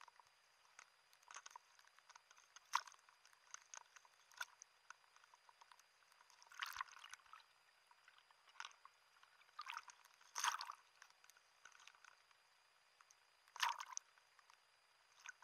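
Choppy sea water sloshing and splashing at the surface around a floating diver, in faint, irregular splashes every second or so, the loudest about three and ten seconds in.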